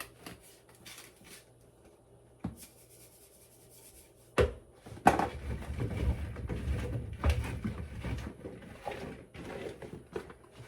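Kitchen handling sounds: scattered light knocks, then a sharp knock about four seconds in, followed by several seconds of dense rustling and knocking as washed potatoes are tossed by hand to coat them in seasoning.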